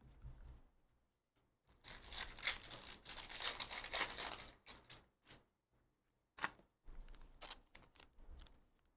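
A 2023/24 Panini Prizm Basketball hobby pack's wrapper being torn open, a noisy rip lasting a couple of seconds. It is followed by a few short clicks and rustles as the cards are handled.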